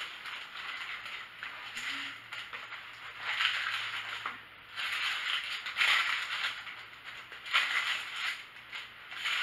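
Cardboard takeout box and its paper lining rustling and crinkling as hands pick through fries and fried food, in several short bursts.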